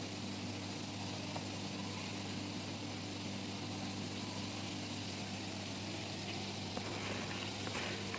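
A steady mechanical hum from a running motor, an even drone that does not change, with a few faint clicks near the end.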